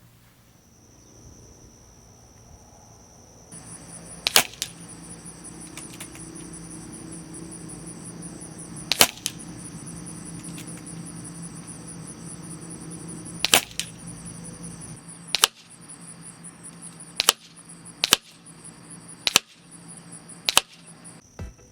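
Benjamin Marauder .22 precharged pneumatic air pistol firing about eight sharp shots, the first few several seconds apart, then about one a second near the end. Insects chirp steadily in the background.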